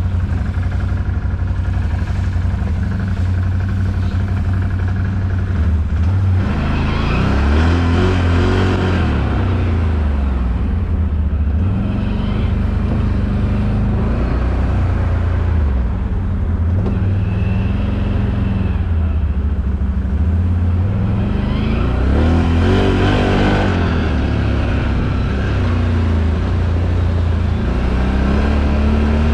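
ATV quad engine running under way, its pitch rising and falling with the throttle as it is ridden, with the biggest swings about a quarter and three quarters of the way through.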